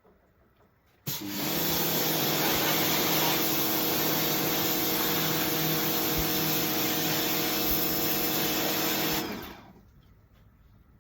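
WAP electric pressure washer switched on about a second in, its motor and pump running steadily with a high hiss, then shutting off and running down about nine seconds in.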